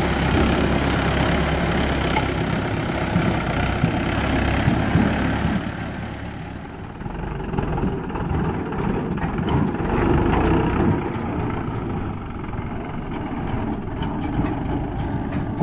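Mahindra 575 DI tractor's four-cylinder diesel engine running steadily. The sound dips briefly about seven seconds in, then carries on.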